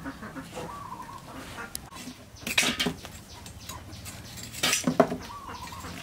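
Metal cookware clattering and clinking in two short bursts, about two and a half and five seconds in.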